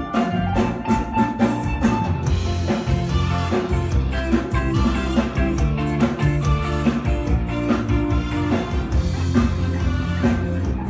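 Band music: a drum kit keeping a steady beat under bass and guitar.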